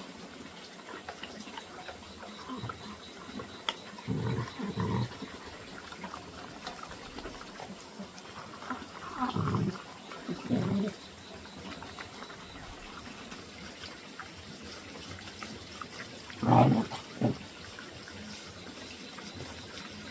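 A dog giving short barks and whines in three brief groups, the loudest about three-quarters of the way through, over a faint steady hiss.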